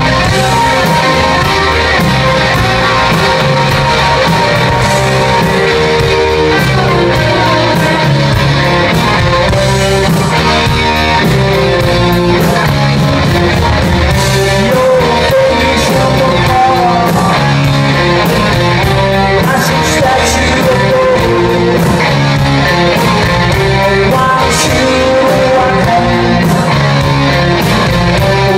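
Live rock band playing at full volume: electric guitars, bass and drums with a lead singer.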